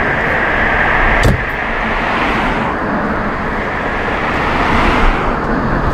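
Road traffic noise at a street crash scene: a steady rush of vehicles that swells about two seconds in and again near the end. There is a single sharp click a little over a second in.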